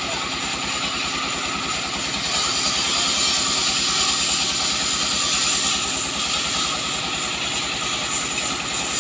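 Sawmill machinery running steadily: a fast, even low pulse under a constant hiss.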